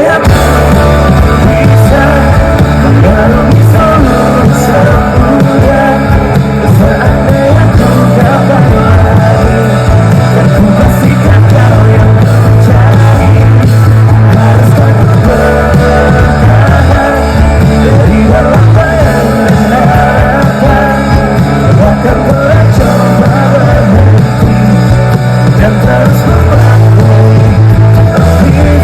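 Live rock band playing loud, with electric guitar, bass and drums and a singer's voice over them.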